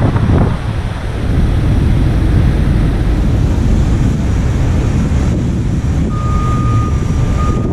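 Heavy tow truck's diesel engine running steadily with a deep rumble, with a thin steady high whine joining about six seconds in.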